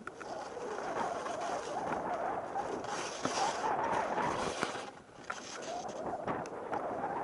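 Rocky Mountain Underground North Shore 114 skis sliding and turning through deep powder snow: a steady hiss that swells and fades with the turns, dipping about five seconds in, with a few sharp clicks in the middle.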